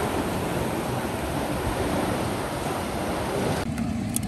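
A loud, steady rushing noise with no clear pitch. About three and a half seconds in, its hiss cuts off suddenly, leaving a lower hum.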